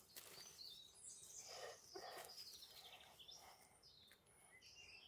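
Near quiet with faint birdsong: small birds chirping with short sliding high calls.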